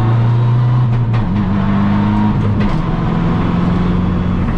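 Subaru WRX STI rally car's turbocharged flat-four engine running hard, heard from inside the stripped, caged cabin. Its note steps down in pitch about a second in and again around two and a half seconds in, with a few faint clicks.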